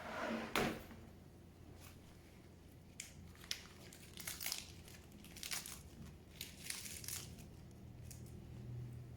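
Fresh Swiss chard being handled and broken apart by hand: irregular crisp crunches and crackles of leaves and stems. The loudest crunch comes about half a second in, and clusters of crunches follow in the middle.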